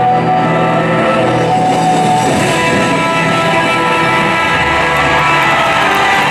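Loud music with guitar and a changing bass line, playing without a break.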